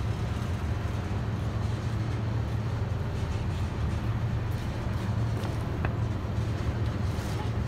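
Freight train of tank cars rolling past below, a steady low rumble of steel wheels on rail, with a brief faint squeal about six seconds in.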